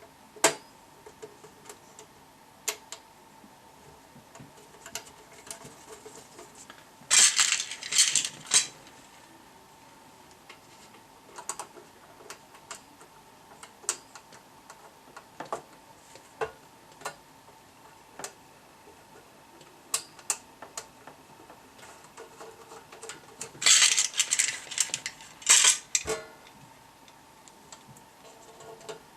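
Small metal parts and tools clicking and rattling as they are handled on a workbench: scattered single clicks, with two bursts of clattering about seven seconds in and again near twenty-four seconds, over a faint steady tone.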